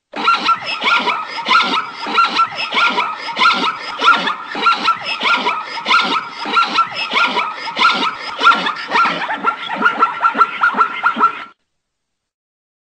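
Zebra barking call: a long run of repeated yelping barks, about two a second, coming faster near the end before stopping suddenly.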